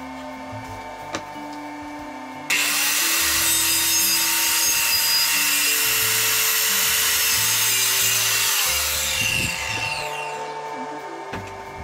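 Handheld Bosch circular saw cutting through wooden boards: it starts suddenly about two and a half seconds in, cuts steadily for about six seconds, then the motor winds down with a falling pitch. Background music plays under it.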